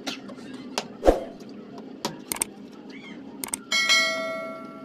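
Large kitchen knife chopping raw chicken on a plastic cutting board: a series of sharp knocks, the heaviest a thump about a second in. Near the end, a subscribe-button sound effect: two quick clicks, then a bell ding that rings out and fades.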